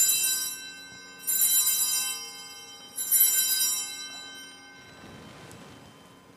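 Altar bells rung three times at the elevation of the chalice after its consecration at Mass. The rings come about one and a half seconds apart, each bright and fading slowly.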